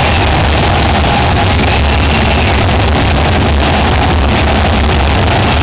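Loud, unbroken stadium din: a crowd roaring and cheering over music from the public-address system, recorded so loud that it comes out distorted and rumbly. A few single shouts or whoops rise above it.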